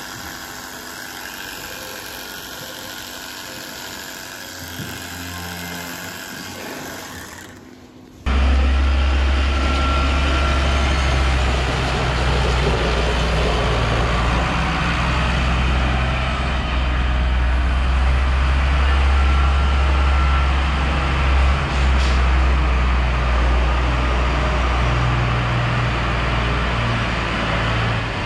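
Background music, then after a sudden cut a Massey Ferguson tractor's diesel engine running loudly and steadily while its front loader handles large square straw bales. The engine note shifts up and down a few times, and there is one sharp knock about two-thirds of the way in.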